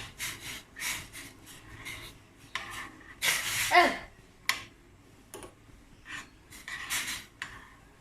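Spoon stirring ginger and palm sugar in water, scraping against the vessel in a series of short, uneven strokes. A short falling squeal comes about halfway through.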